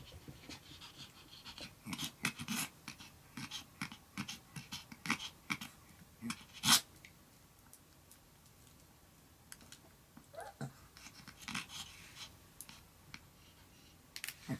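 Chihuahua panting in quick, uneven runs of short breaths while begging for a treat, with one loud sharp click about seven seconds in.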